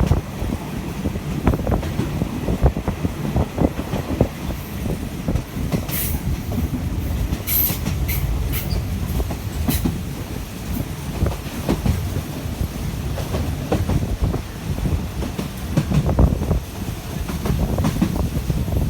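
Passenger train running along the track: a steady low rumble and rattle of the carriage on the rails, with a few short high squeals around the middle.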